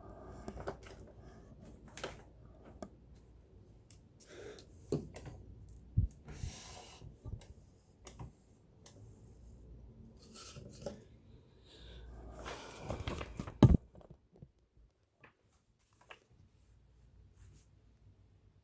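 Hands working on a vintage metal sewing machine during cleaning and oiling: scattered light clicks, taps and rubbing of parts and tools, with a louder stretch of rubbing that ends in a sharp knock about two-thirds through.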